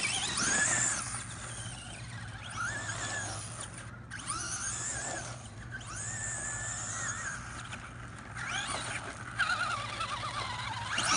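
Electric motors of radio-controlled trucks whining, the pitch rising and falling again and again as the throttle is worked.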